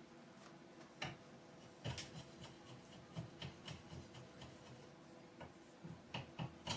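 Faint, irregular clicks and light taps, a few seconds apart, from hand work on an old wooden axe handle being fitted to a double-bit axe head.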